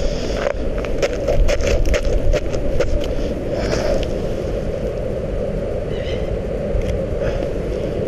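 Shoes crunching and scuffing on snow-covered stone steps, a quick irregular run of crunches in the first three seconds, over a steady outdoor rumble of wind on the microphone.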